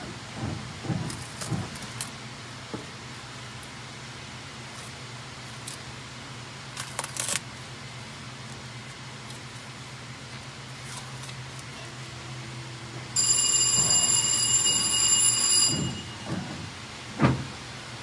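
A steady low hum with scattered light clicks, then a loud, high-pitched ringing tone that starts suddenly about two-thirds of the way through, holds for about two and a half seconds and cuts off. A sharp knock follows near the end.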